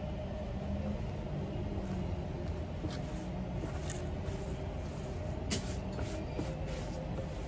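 Steady low background hum, with a few brief rustles and taps of army uniform fabric being handled and smoothed by hand, the sharpest about five and a half seconds in.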